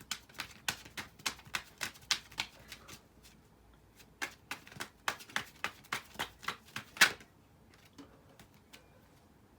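A tarot deck being shuffled by hand: two quick runs of card clicks with a short pause between them, the second ending in one sharp snap about seven seconds in.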